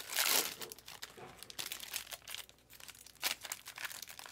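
Foil wrapper of a baseball card pack crinkling and tearing as the pack is opened, in irregular crackly bursts. The loudest burst comes right at the start, there is a quieter spell in the middle, and more crackles follow near the end.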